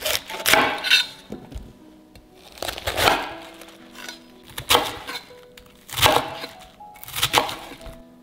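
Chef's knife cutting through a head of cabbage and striking a wooden cutting board: crisp crunching chops, three quick ones in the first second and then single cuts every second or so.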